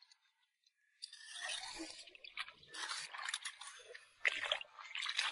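Footsteps wading through shallow tide-pool water, splashing and squelching in uneven surges, starting about a second in.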